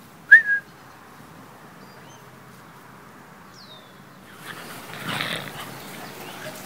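Cavalier King Charles spaniels play-fighting, growling and scuffling from about four seconds in, loudest around five seconds. A brief sharp high sound comes just after the start.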